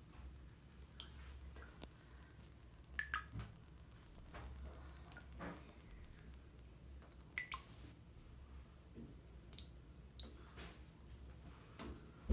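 Lush Yoga Bomb bath bomb fizzing in water: faint, scattered pops and drips of bursting bubbles over a steady low hum, with a sharp click at the very end.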